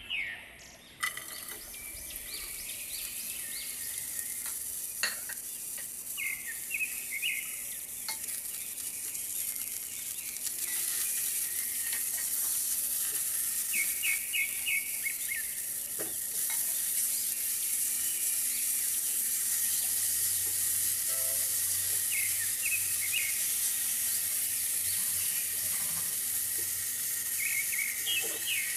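Carrot and bell pepper strips sizzling in hot oil in a stainless steel pan, stirred with a silicone spatula, with a few light taps of the spatula on the pan. The sizzle starts about a second in and grows louder about ten seconds in.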